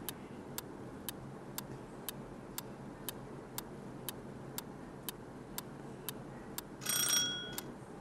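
Clock-tick countdown sound effect of a quiz timer, ticking steadily about twice a second, ending about seven seconds in with a short bell-like ring as time runs out.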